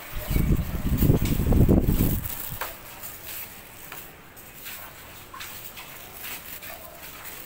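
Handling noise on a phone's microphone: a loud, low rumbling scrape for about two seconds as the phone is moved, then faint scattered clicks and rustles.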